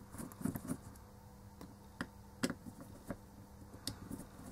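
Scattered light clicks and taps of a small hand tool against the plastic and LED board of a dismantled LED bulb, about half a dozen, the sharpest about two and a half seconds in.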